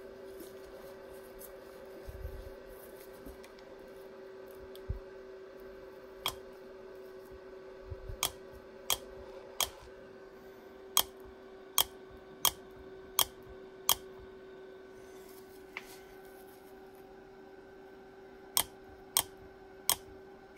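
Smart fortwo air-conditioning compressor's electromagnetic clutch being energised and released on the bench, its armature plate snapping against the pulley with sharp metallic clacks. There are about a dozen clacks, mostly in quick runs less than a second apart, over a steady hum.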